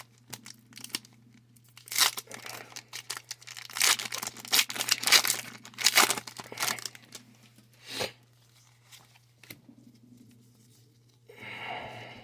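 Foil wrapper of a Pokémon card booster pack being torn open and crinkled, in irregular rustling bursts about two seconds in and again from about four to seven seconds, with a sharp click near eight seconds. A steady low hum runs underneath.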